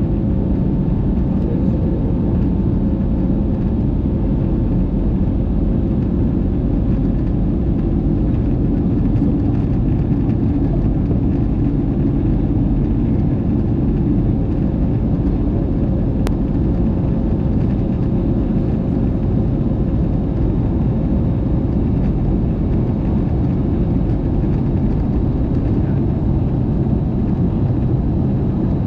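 Steady in-cabin noise of an Airbus A220 in climb, heard beside the wing. Its Pratt & Whitney PW1500G geared turbofan engine and the rushing airflow make a constant low rumble, with a faint steady hum above it.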